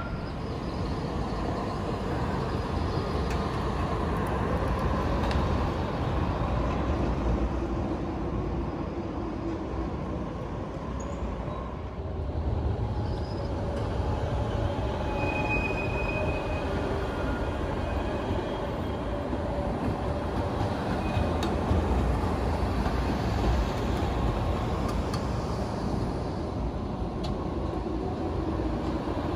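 Trams running past on street track: a steady rumble of wheels and motors, with a brief faint high tone near the middle.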